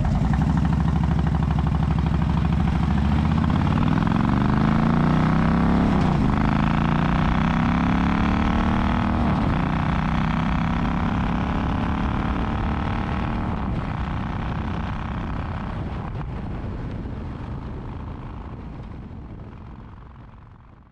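Motorcycle engine pulling away and accelerating, its pitch climbing then dropping sharply at two gear changes about six and nine seconds in, then running steadily before fading out near the end.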